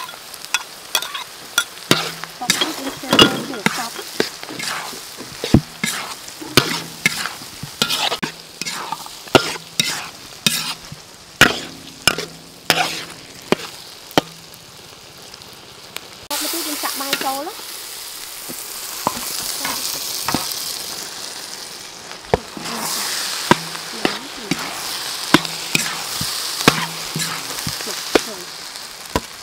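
Diced vegetables and egg stir-frying in a metal wok: a spatula scrapes and knocks against the pan over a sizzle. About halfway through the knocking thins out and a steadier, louder sizzle takes over.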